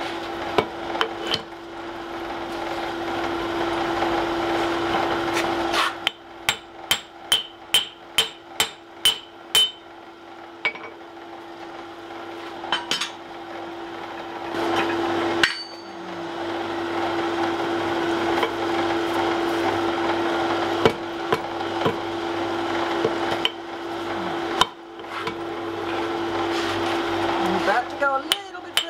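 A forge blower runs with a steady hum and rush of air as the wrought-iron collar is heated. About six seconds in it drops back for a quick run of about ten hammer blows ringing on steel, a little over two a second. A few lone clinks follow, then the blower runs again until near the end.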